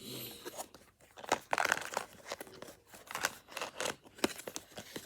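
Crinkly wrapping or a bag being handled, an irregular run of crackles and rustles.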